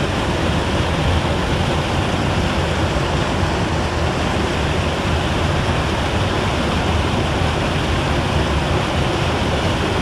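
A small waterfall pouring over granite into a pool: a steady, loud rush of whitewater.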